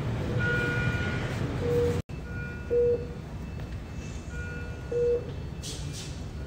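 Electronic beeping: a single mid-pitched beep repeating about every two seconds over a steady low rumble. The sound cuts out briefly about two seconds in.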